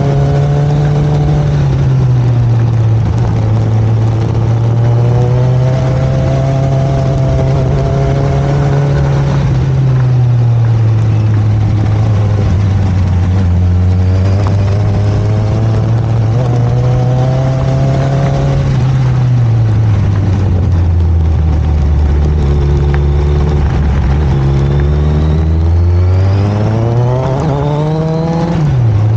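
Motorcycle engine running under way, its pitch rising and falling as the rider opens and closes the throttle, over a steady rush of noise. Near the end the revs climb, then drop suddenly.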